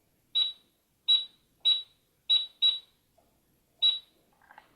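Barbie Blinging Cash Register toy giving six short, high electronic beeps, unevenly spaced, as an item's price is rung up.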